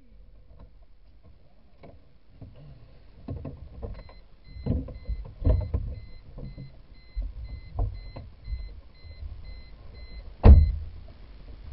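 A series of irregular low thumps and knocks, the loudest one about ten and a half seconds in.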